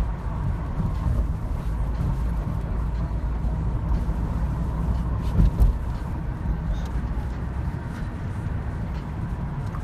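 Road and engine noise inside a moving car's cabin: a steady low rumble, with one short thump about five and a half seconds in.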